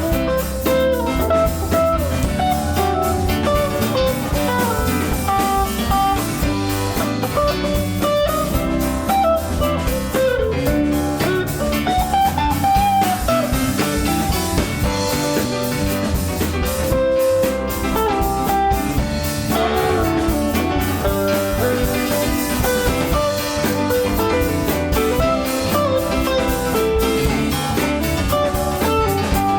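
Live band in an instrumental break: a lead guitar solo with bent notes over drum kit and bass.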